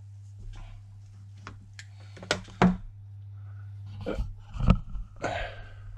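Handling noises: a few short knocks and rustles, the loudest about four and a half seconds in, over a steady low electrical hum.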